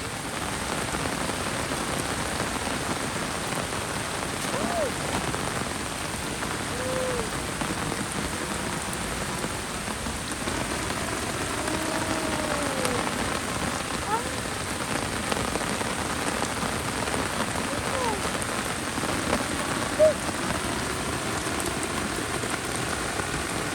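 Heavy rain falling steadily, with a few brief faint calls that rise and fall in pitch, and a single sharp tap about twenty seconds in.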